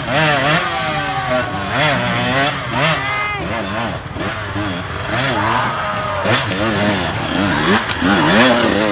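Enduro dirt bike engine revving up and down in quick throttle bursts as the bike is ridden slowly over a rock garden.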